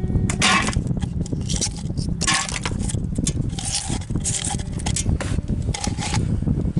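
Small pieces of scrap metal scraping and clicking against a magnet as they are handled and pulled off it, in irregular short scrapes over a steady low rumble.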